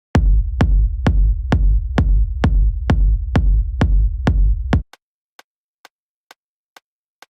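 Techno loop playing back from a DAW: a drum-machine kick hitting four to the floor at about 130 beats a minute over a deep, sustained sub-bass. About five seconds in, the bass and kick cut off suddenly, leaving only faint clicks keeping the beat.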